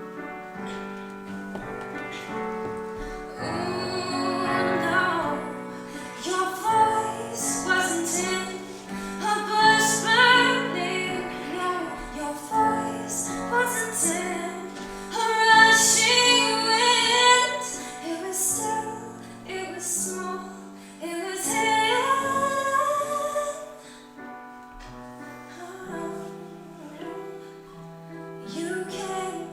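A woman singing a slow song live with instrumental accompaniment, holding long notes; it swells loudest about halfway through and turns softer near the end.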